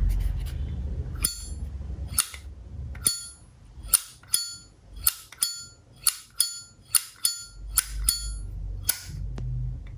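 Solid-brass Zippo lighter (1988 date code) having its hinged lid flicked open and snapped shut again and again: about fourteen crisp metallic clicks, many in quick pairs, each with a short bright ring.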